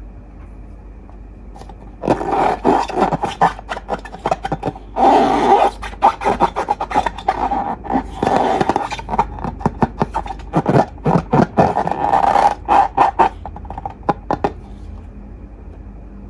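Slime being squeezed and worked by hand, making dense, rapid sticky crackles and pops. It starts about two seconds in and dies away near the end.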